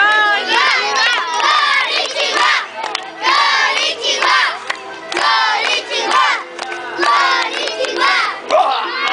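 A crowd of children shouting and cheering in repeated bursts about once a second, with short lulls between.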